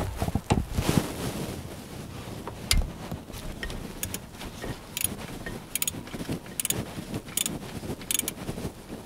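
A wrench working the alternator's lower mounting bolt in an engine bay, with sharp metallic clicks, about one a second through the second half.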